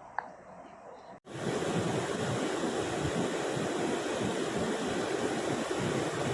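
Waterfall water rushing in a loud, steady roar that starts abruptly about a second in, after a short quieter stretch with a brief chirp.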